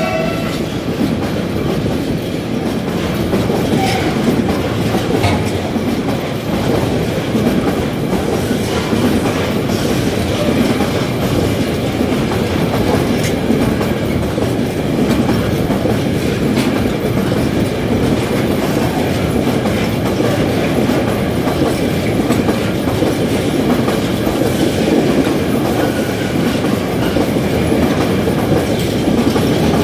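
Empty freight platform wagons of a train rolling past at speed, a steady rumble with wheels clattering now and then over rail joints.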